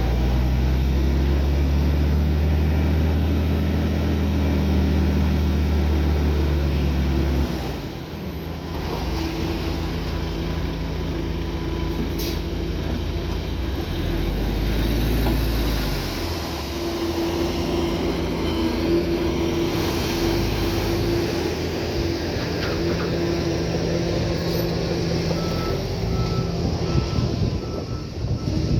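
Heavy diesel earthmoving machinery running under load, a deep steady engine note for the first several seconds that then drops and shifts in pitch. A backup alarm beeps at an even pace near the end.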